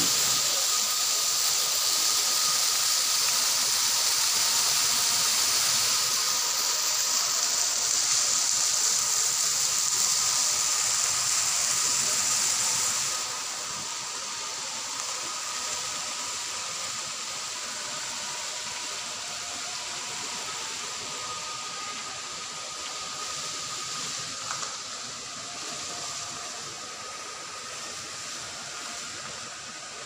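Fountain jets splashing in a large indoor atrium, a steady hiss of falling water that drops away sharply a little under halfway through, leaving quieter hall ambience with a faint steady tone.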